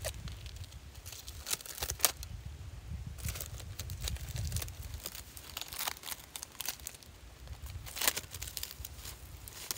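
Crackling and rustling as a freshly dug tree stump with soil on it is handled among dry leaf litter, with scattered sharp clicks, the loudest about two seconds in. A low rumble runs under the first half.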